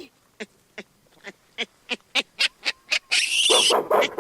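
Primate calls made from gorilla and baboon recordings, voicing the extinct monkey Paradolichopithecus. A run of short grunts comes faster and faster, then a shrill scream starts about three seconds in.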